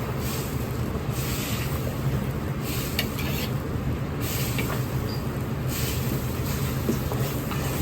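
Commercial kitchen wok range and exhaust running with a steady low hum, with hissing that comes and goes in spells of about a second, as in cooking at the wok.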